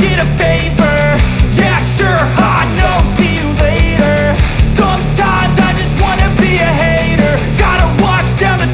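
Background rock music with loud drums, a steady bass and a singing voice.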